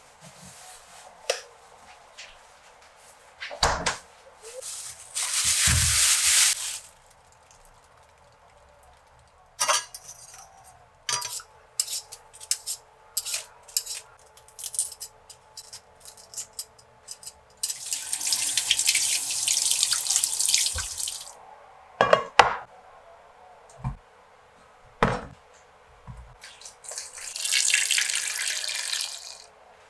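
Kitchen prep sounds. Water runs in spells of a few seconds, and a vegetable peeler scrapes potatoes in quick short strokes. Near the end, water is poured from a jug into a rice cooker's inner pot over peeled potatoes, with a few knocks and clunks in between.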